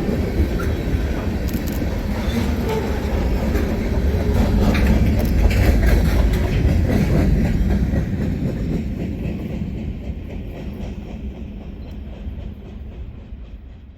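Freight train rolling past, its steel wheels rumbling and clattering on the rails. The sound swells about five seconds in, then fades steadily as the train moves away.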